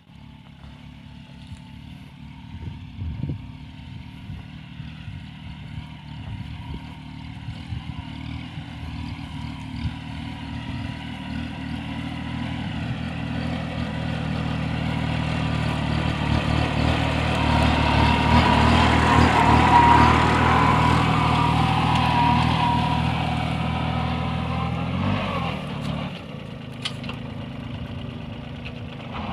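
Kubota mini tractor's diesel engine running steadily under load as it pulls a ridger through the soil between sugarcane rows. It grows louder as the tractor approaches, is loudest about two-thirds of the way in, then drops and falls in pitch as the tractor passes by.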